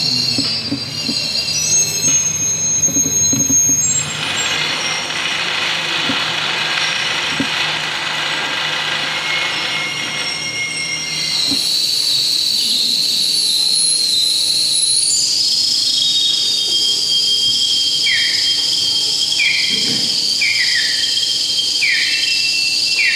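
Handmade bird-call sound object of glass jars of liquid and tubes being worked by hand, giving high squealing and whistling tones with a hissing stretch early on. After about ten seconds a steady high whistle sets in, and near the end a run of short falling chirps comes about once a second.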